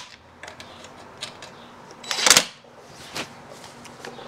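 Light clicks and handling of a hand tool at the motorcycle's horn wiring, with one brief, sharp noisy burst about two seconds in.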